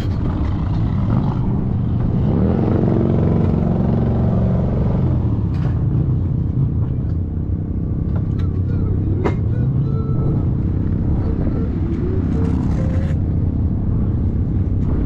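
Motorcycle engine running, its pitch rising about two seconds in and easing back down after about five seconds, then swelling briefly again near ten seconds. A couple of sharp clicks sound over it.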